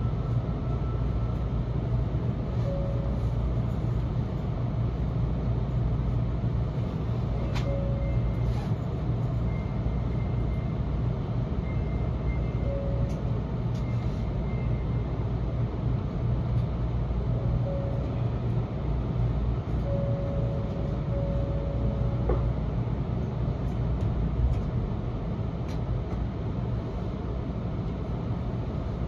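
Steady low hum inside a Shinkansen car standing at a station platform, from the stationary train's running equipment. A few faint clicks and brief faint tones sit over it.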